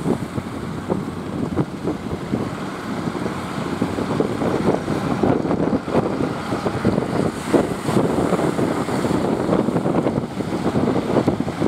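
Wind buffeting the microphone aboard a fishing boat at sea, a continuous rough rumble with frequent short gusts, mixed with the noise of the boat moving through water.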